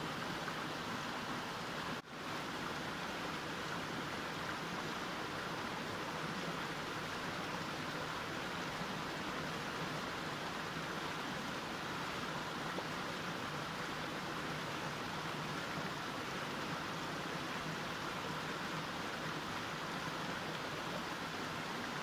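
Mountain stream flowing steadily, an even rush of water. The sound dips sharply for a split second about two seconds in, then carries on unchanged.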